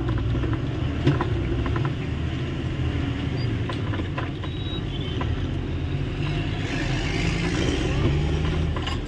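Truck's diesel engine running steadily at low speed, heard from inside the cab as it moves off through slow traffic, with a few sharp rattles and clicks about a second in.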